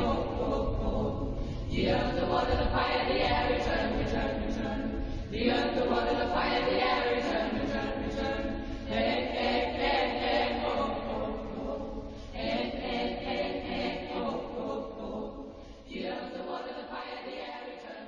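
A choir singing long held chords in slow phrases, a new phrase starting about every three and a half seconds, fading out over the last few seconds.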